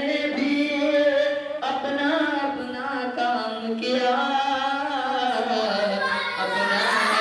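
A man's voice singing a naat unaccompanied, holding long, ornamented melodic lines.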